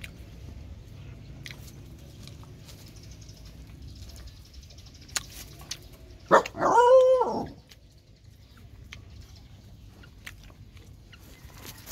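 A dog gives one loud, drawn-out bark-like call, lasting about a second, about six seconds in; its pitch rises and then falls.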